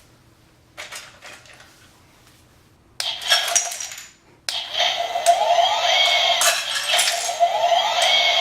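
Toy remote-control excavator whirring and clicking, with repeated short rising whines; it starts abruptly about three seconds in, breaks off briefly, then runs on continuously.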